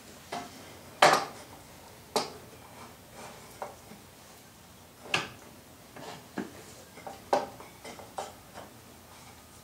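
Irregular knocks and clicks of metal clamps and a wooden cleat being handled and set against a wooden drawer panel, the loudest knock about a second in.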